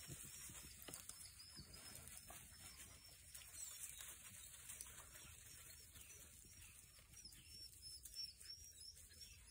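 Near silence, with faint rustles and light ticks from a pack of beagles moving through dry leaf litter.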